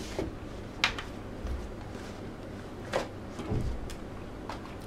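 Cardboard phone box being handled: a few sharp taps and a soft knock as the box's tray insert is lifted out and set down on a wooden table, with the clearest taps about a second in and near three seconds.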